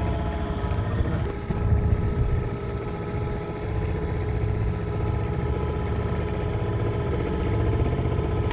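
Boat engine running steadily at low speed, an even mechanical drone with a strong low pulse.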